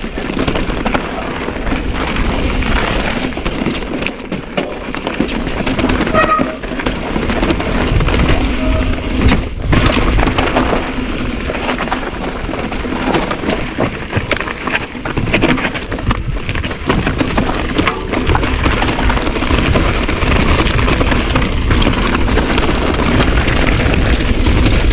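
Mountain bike riding down a loose trail: wind rushing over the microphone, with tyres crunching on loose dirt and gravel and the bike knocking and rattling over bumps.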